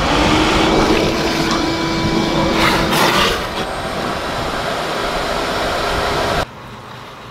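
Wet/dry shop vacuum running, sucking muddy water out of a dug hole through its hose, with a louder slurp about three seconds in; the motor cuts off suddenly near the end.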